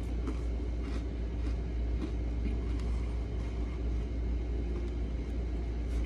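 A steady low room hum, with a few faint, scattered crunches from a sandwich cookie being chewed with the mouth closed.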